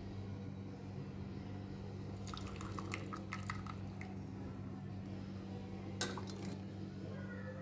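Light metallic clinks of a strainer and cups while a hot herbal kadha is strained and poured: a quick run of small clinks about two to three and a half seconds in and one sharper clink about six seconds in, over a steady low hum.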